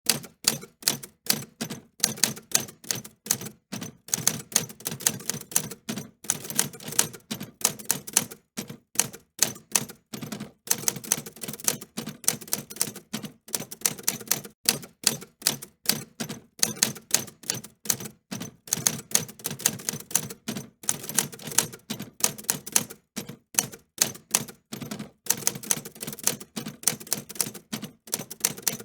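Typewriter keys being struck in a steady run of sharp mechanical clicks, several a second, with short pauses between runs.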